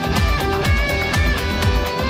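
Background music with a steady drumbeat, a low kick about twice a second.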